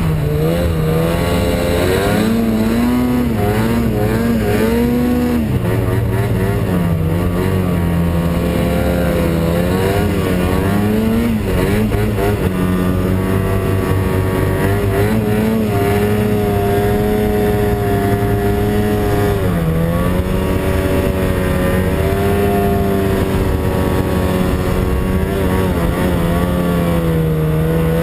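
Snowmobile engine running under load through deep snow, its pitch rising and falling with the throttle.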